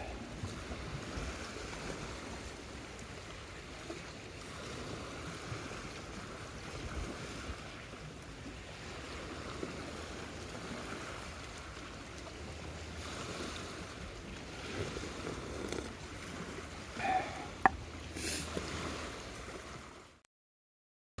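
Steady outdoor rush of water and wind, with a few sharp clicks near the end; the sound then cuts off to silence.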